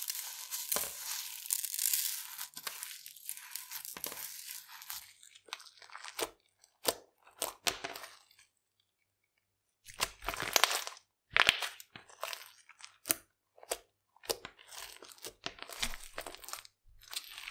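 Sugar sprinkles falling onto a slime, then hands squeezing, folding and pulling the sticky, sprinkle-filled slime. It makes irregular bursts of wet, sticky crackling noise, with a short silent pause about halfway through. The slime has gone runny and keeps dissolving.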